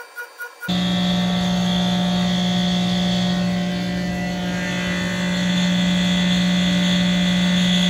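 Tormach 1100MX CNC mill cutting a titanium handle slab with a 1/4-inch ball end mill in a 3D contouring pass. The sound starts suddenly under a second in and is loud and steady: a low hum with a fainter high whine.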